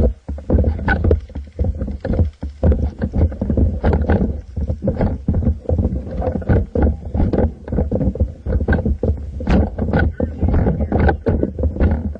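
Handling noise from a camera mounted on an airsoft M4: a continuous low rumble with irregular knocks and rustles, several a second, as the rifle is carried and moved.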